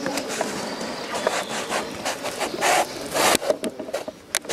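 Rubbing and scraping handling noise, with louder rasping scrapes about two and a half seconds in and again about three seconds in, and a few sharp clicks near the end.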